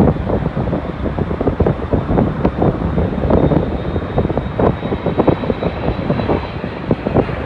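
Jet airliner engines running, heard over heavy wind buffeting on the microphone, with a faint high whine running through.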